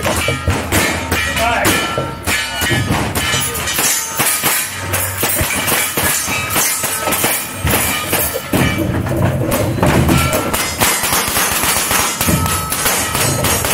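Background music over the whole stretch.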